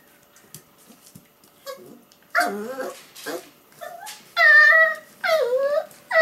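Pomsky puppy (Pomeranian–Siberian Husky cross) yipping and barking in play, a series of high calls in the second half with the longest and loudest about four and a half seconds in.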